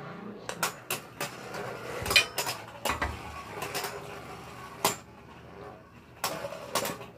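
Two spinning Beyblade Burst tops, Epic Evipero and Lost Luinor, in a plastic Beyblade stadium, clacking against each other and the stadium floor with about a dozen sharp knocks spread unevenly over a faint steady noise; the loudest knock comes about two seconds in.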